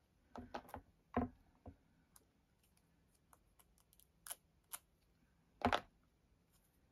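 Small craft supplies being handled by hand on a cutting mat: scattered light clicks and taps, with louder knocks about half a second in, just after one second and near six seconds.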